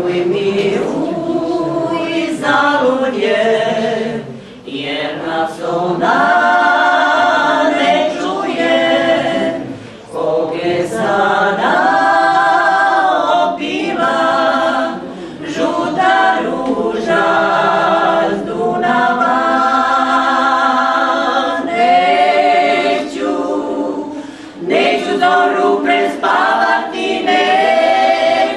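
A small group of women singing a cappella in harmony, in long held phrases with slight vibrato and short breaks between them.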